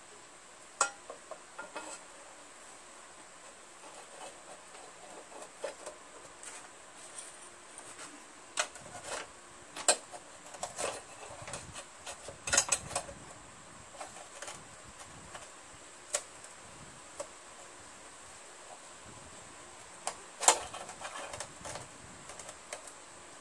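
Irregular light clicks and metallic clinks of hands working a mower carburetor's float bowl and bowl nut, seating the nut's rubber gasket in its groove. The loudest knocks come about twelve and twenty seconds in.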